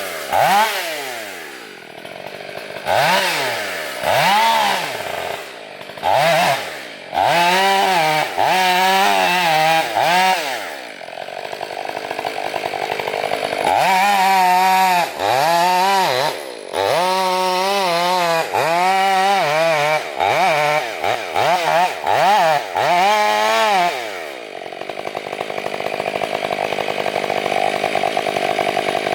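Chainsaw engine revved again and again, its pitch climbing to full throttle, holding briefly and falling back many times over, then settling into steadier, lower running near the end.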